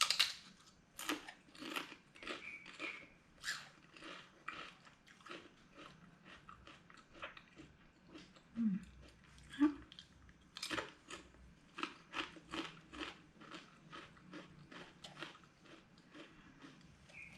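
A person chewing a crunchy pepper-flavoured potato snack: a run of crisp, irregular crunches, roughly two a second.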